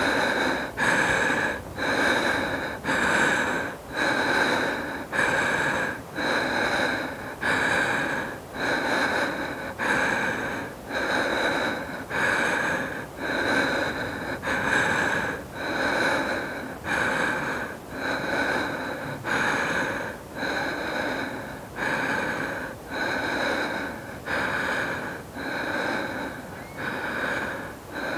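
A woman breathing hard and out of breath after exercise: deep, even breaths drawn in and pushed out at a steady pace of about one a second.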